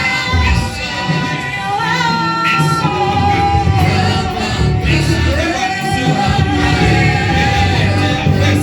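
Gospel worship song: voices singing over instrumental backing with a heavy bass, including a long held note in the second half.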